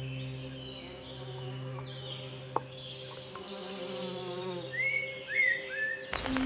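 Small birds chirping and calling over a soft, sustained music drone, with a few short up-and-down chirps near the end. The music changes abruptly just before the end.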